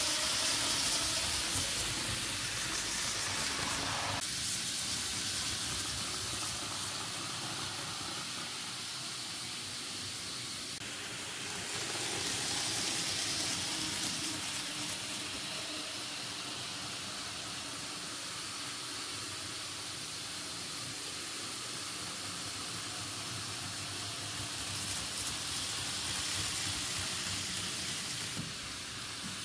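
N-gauge model trains running on the layout: a steady hiss of small wheels and motors on the track, swelling three times as a train passes close.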